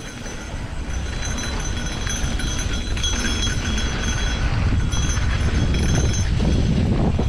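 Mountain bike rolling fast along dirt singletrack: wind buffeting the action camera's microphone over the rumble and rattle of tyres and bike on the trail, growing a little louder as the ride goes on.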